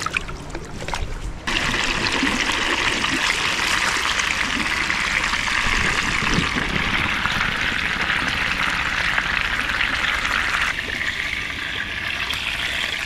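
Whole fish frying in a pan: a steady sizzle that starts abruptly about a second and a half in and eases a little near the end.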